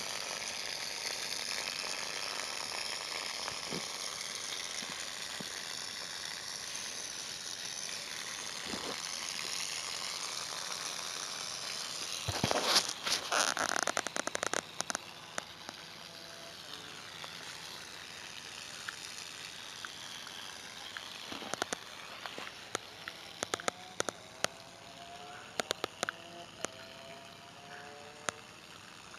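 CO2 blowback airsoft pistol firing a quick string of sharp cracks about twelve seconds in, over a steady hiss. Scattered single sharp clicks follow in the last third.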